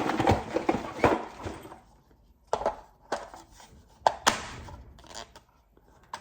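Small metal pieces, loose brad nails, clattering for about two seconds, then a handful of separate clicks and knocks.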